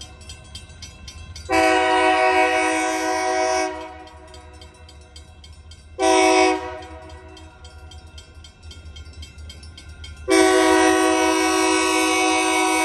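Wisconsin & Southern locomotive air horn sounding for a grade crossing: a long blast about a second and a half in, a short blast around six seconds, and another long blast from about ten seconds that carries on. Under it the crossing signal's bell rings steadily.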